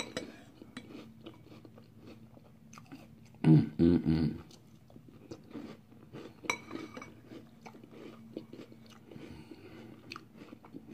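Close-up chewing of crunchy Pop-Tarts Frosted Brown Sugar Cinnamon cereal in milk, with the mouth closed: a run of small crisp crunches. About three and a half seconds in, a short hummed "mm" is the loudest sound.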